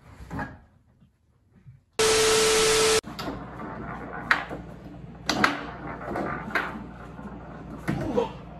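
A loud one-second burst of static-like hiss with a steady hum tone, cutting in and out sharply: an edited-in transition effect. After it comes a foosball game, with several sharp clacks of the ball and rods.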